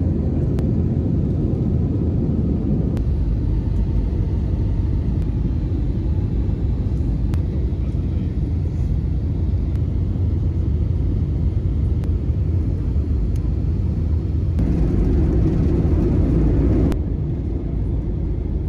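Jet airliner cabin noise on final approach: a steady low rumble of engines and rushing air, which swells louder for about two seconds near the end and then eases off.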